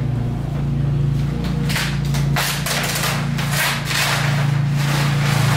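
Plastic sheeting rustling and crinkling as it is pulled and handled, with small knocks, over a steady low hum.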